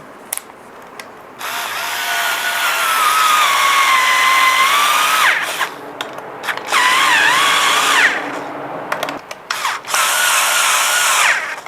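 Cordless screwdriver driving a screw into the scooter's plastic panel: the motor whines in three runs, the first about four seconds long and the other two brief, with a few clicks between them.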